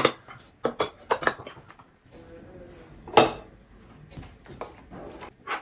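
Plates, small glass bowls and cutlery clinking and clattering as they are gathered up and stacked, in a run of short knocks with the loudest clatter about three seconds in.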